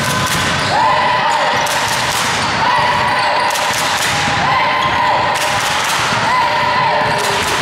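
A basketball bouncing and thudding during play in a large hall, with a steady hall din underneath. A repeated rising-and-falling sound comes about every two seconds.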